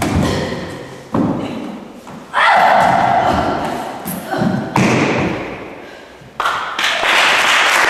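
Loud thuds of bodies, hands and feet hitting the studio floor during a choreographed stage-combat fight, about five hits, each ringing on in the bare hall, with the performers' voices mixed in.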